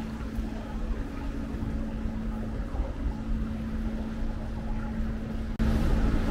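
City street ambience: a steady low rumble with a constant drone running through it. About five and a half seconds in it cuts abruptly and comes back as a louder, fuller rumble.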